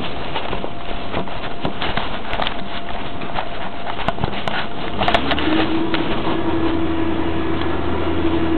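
Knocks and rustling from a hand-held camera being carried along, then, about five seconds in, a Heil 5000 rear-loader garbage truck's engine speeds up and holds a steady drone with a whine over a low hum, as when it works its hydraulic packer.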